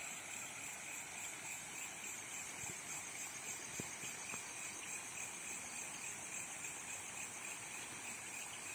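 Steady chorus of night insects, crickets among them, high and even, with one faint tick about four seconds in.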